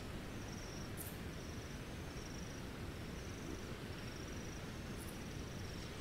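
An insect chirping in short, high, pulsing trills about once a second over a steady background hiss, with two brief sharp ticks, one about a second in and one near the end.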